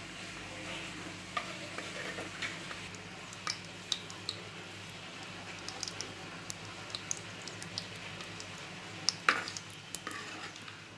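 Fenugreek seeds frying in hot oil in a clay pot: a steady sizzle with scattered sharp pops as the seeds crackle. A perforated steel ladle stirs and knocks against the pot, loudest about nine seconds in.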